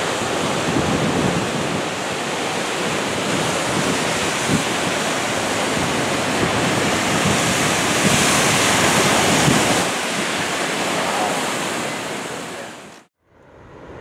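Steady rush of flowing creek water, fading out about twelve seconds in and cutting off abruptly near the end.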